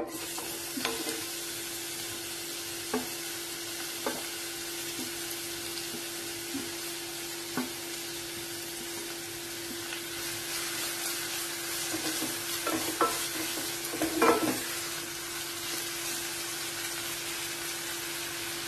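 Grated onion sizzling in hot oil, the hiss starting suddenly as the onion goes into the pot. A wooden spatula stirs and knocks against the pot now and then, with a run of louder knocks about two-thirds of the way through.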